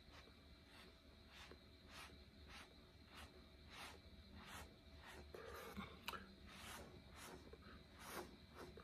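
Faint soft scrapes of a thin stick dragged through wet acrylic paint on a canvas, repeated at about a stroke every half second over a low room hum.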